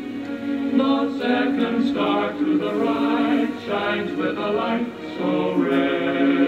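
Music with several voices singing together in held notes.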